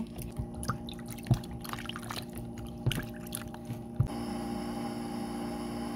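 Peeled potatoes being washed by hand in a bowl of water: irregular splashing and sloshing with a few sharp knocks. About four seconds in it cuts off abruptly to a steady low hum.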